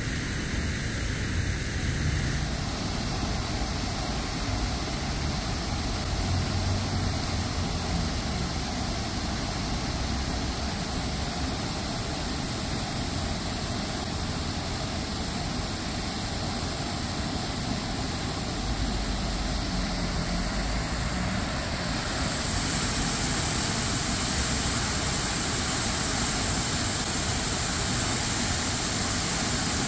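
Walker Fountain's water jets splashing into the basin, a steady rushing of water over a low hum of city traffic. About three-quarters of the way through, the water's hiss grows louder.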